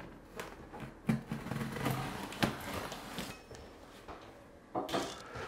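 Knife blade slitting the packing tape along the top of a cardboard box: several short, irregular scraping cuts, with the cardboard rustling and knocking under the hand.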